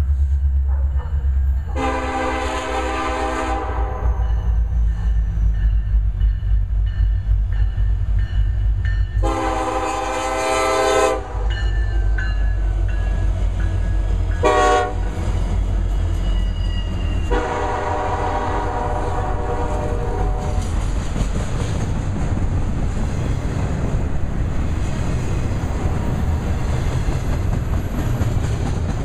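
Union Pacific intermodal train led by an EMD SD70ACe sounding its horn in the grade-crossing pattern as it approaches: two long blasts, one short and one long. Its locomotives and double-stack container cars then pass with a steady low rumble and wheel clatter.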